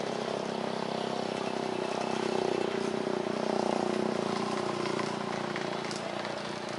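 Steady engine noise with a low hum, swelling a couple of seconds in and easing off toward the end.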